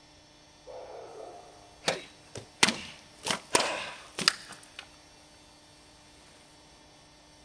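Custom FableBlades elven saber and dirk cutting targets: a quick run of about half a dozen sharp swishes and strikes over some three seconds, followed by a few lighter ticks.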